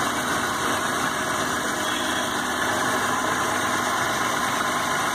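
Maruti 800's three-cylinder petrol engine idling steadily after a cylinder head overhaul, running smoothly with no misfiring or jerking.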